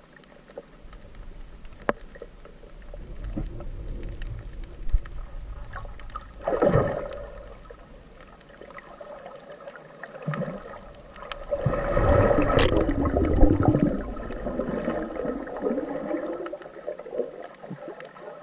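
Muffled underwater gurgling and sloshing as heard by a camera in a waterproof housing, with scattered small clicks. A short surge comes about six and a half seconds in, and a longer, louder gurgling surge from about twelve to fourteen seconds.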